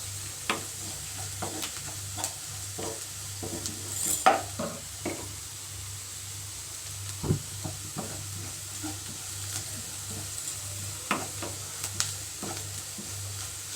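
Chopped onions frying in oil in a pan, sizzling quietly while a spoon stirs them with irregular clicks and scrapes against the pan; the onions are being cooked until they turn brown. A steady low hum runs underneath.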